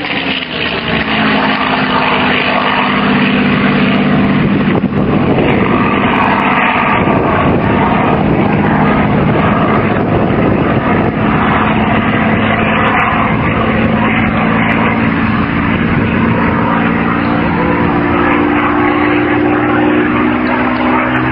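Supermarine Spitfire's piston engine running hard in a low display pass. The pitch falls at the very start as it passes, holds steady, and rises again in the last few seconds as it comes back round.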